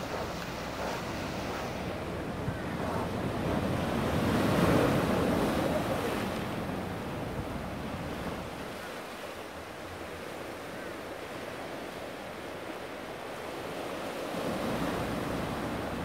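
Small sea waves washing over shore rocks, swelling about five seconds in and again near the end, with wind on the microphone.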